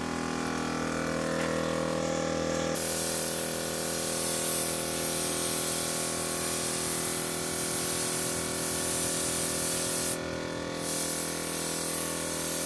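Compressed-air paint spray gun hissing as it sprays paint, starting about three seconds in, with a short break near the end. Underneath, a steady machine drone runs, typical of the air compressor feeding the gun.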